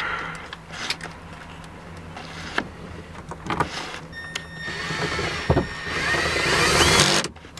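Milwaukee cordless drill/driver with a socket extension driving a dashboard screw. Its motor whine starts about four seconds in, grows louder and stops abruptly near the end, after a few knocks of handling.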